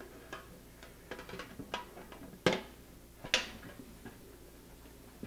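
Light handling ticks on a stainless steel gravity filter housing as its parts are fitted and turned, with two sharp metal clicks about a second apart midway.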